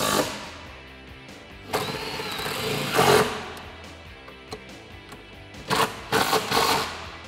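Cordless impact tool running in short bursts a few seconds apart, driving a socket on an extension to tighten steel mounting bolts.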